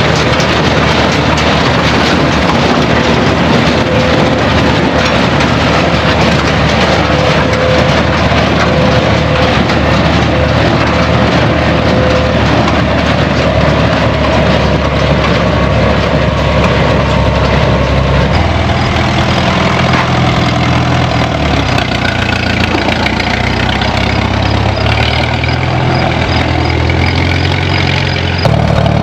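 Farm tractor engine running steadily, its engine note changing about two-thirds of the way through.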